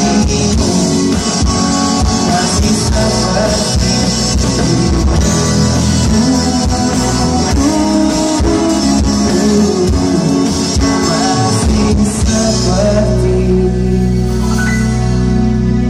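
Live pop-rock band music: a male singer's voice over electric guitar, bass and drums. About twelve seconds in the drums stop and a held chord rings on more softly.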